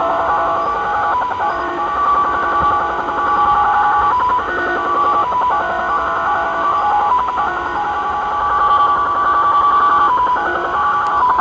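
Tecsun PL-600 portable shortwave receiver in single-sideband mode playing the "Japanese Slot Machine" (XSL) multi-tone data signal on 4154 kHz. Several tones sound at once and jump in pitch every fraction of a second with a fast chatter, over a background of static hiss.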